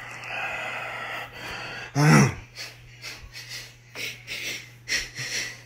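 Breathing and sniffing close to the microphone, with one short, loud vocal sound falling in pitch about two seconds in, followed by a run of short breaths.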